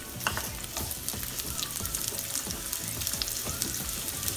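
Onion rings sizzling in hot cooking oil in a nonstick frying pan: a steady, crackling hiss, with scattered clicks and scrapes from a spatula stirring them in the pan.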